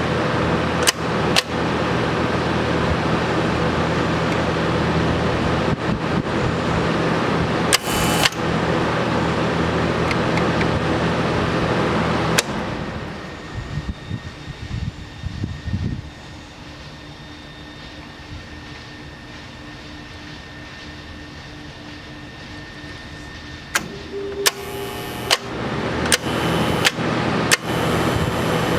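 TIG welder energised, its transformer giving a loud steady mains hum and buzz, with sharp relay clicks. About twelve seconds in it clicks off, leaving a much quieter steady hiss. Near the end the relays click and chatter and the loud hum comes back on.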